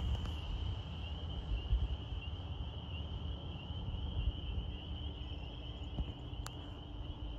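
Remote-control B-25 model's twin motors droning faintly as it flies away, over a steady high insect trill like crickets and low wind rumble on the microphone. A single sharp click about 6.5 seconds in.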